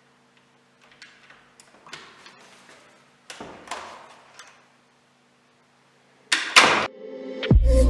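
A series of light knocks and clicks in a small room, with a louder, noisier burst about six and a half seconds in; music starts just before the end.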